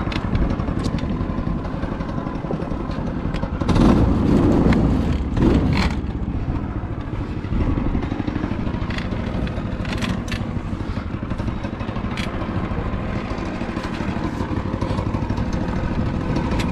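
Yerf-Dog 3203 go-kart's small engine running steadily as the kart drives through snow, getting louder for a couple of seconds about four seconds in, with scattered short clatters from the frame.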